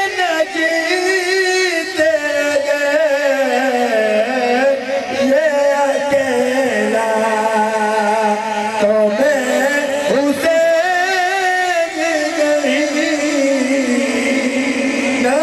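A man's solo voice chanting a melismatic Shia majlis recitation (zakiri) through a microphone, in long held notes that waver and slide in pitch.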